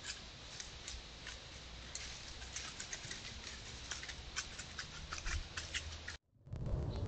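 Scattered light ticks and crackles of dry brush and leaves as an animal moves through undergrowth, over a faint outdoor hiss. About six seconds in the sound cuts out briefly and a steady low rumble follows.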